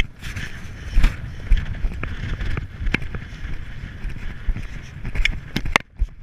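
Horse cantering on grass: dull, irregular hoofbeats with a steady rumble of wind on a helmet-mounted camera's microphone.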